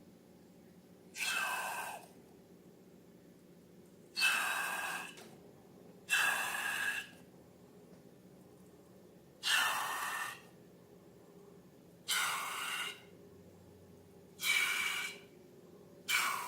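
Seven short bursts of rushing, breath-like noise, each lasting just under a second and coming every two to three seconds, over a faint steady hum.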